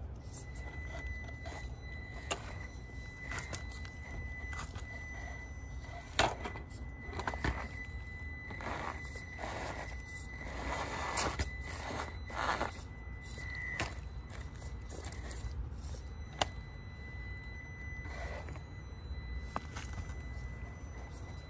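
Traxxas TRX-4M micro RC crawler creeping over rocks: a steady thin high whine from its motor and gears, with scrapes and a few sharp knocks of tyres and chassis against rock. The whine fades out about two-thirds of the way through.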